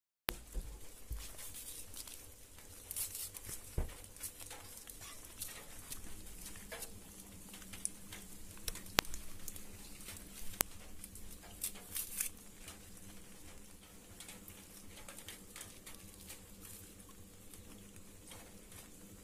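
Rustling and crinkling of rolled banana-leaf pieces being pulled open by hand, a steady run of small irregular crackles and ticks with a few sharper snaps.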